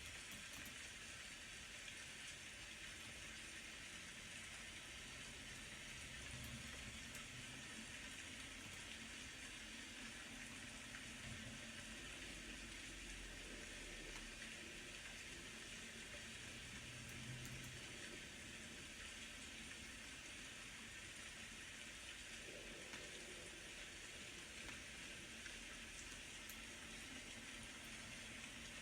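Faint, steady rain.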